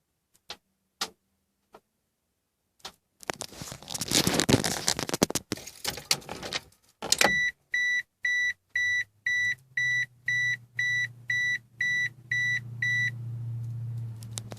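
A few clicks and some rustling, then an Eagle Talon's electronic warning chime beeping about twice a second, a dozen times, with a low steady hum coming in underneath.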